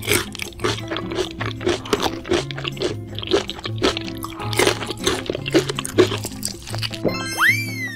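Cartoon crunching sound effects of hard candy being bitten and chewed, a quick run of crisp crunches over background music. Near the end a sliding whistle-like tone rises and then falls.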